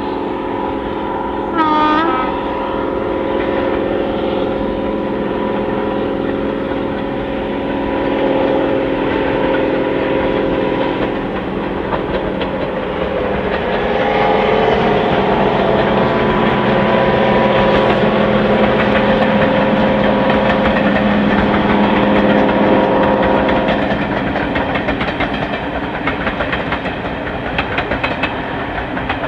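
Class 55 Deltic locomotive D9009 Alycidon, powered by two Napier Deltic two-stroke diesel engines, passing with a train of coaches. There is a short horn blast about two seconds in. The engine drone is loudest midway as the locomotive goes by, and the coaches' wheels click over the rail joints near the end.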